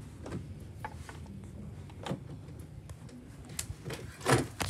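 Faint rustling and a few light knocks over a low steady rumble, with louder knocks near the end.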